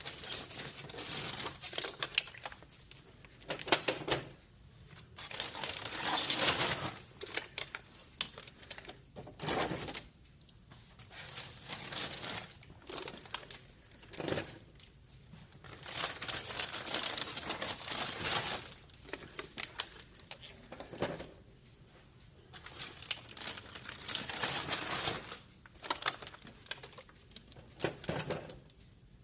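Plastic snack bags crinkling in repeated bursts as they are handled and loaded into a vending machine. A few sharp clicks and knocks come between the bursts.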